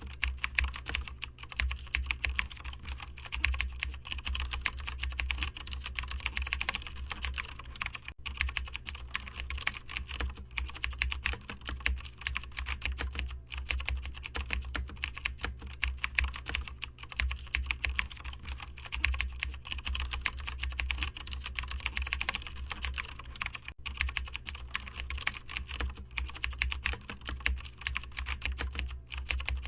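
Continuous typing on a computer keyboard: a steady stream of rapid, soft keystroke clicks with brief pauses, over a low steady hum.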